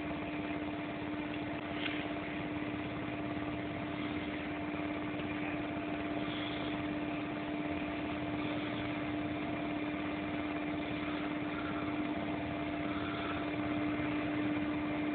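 A steady mechanical hum: one constant low tone over an even hiss.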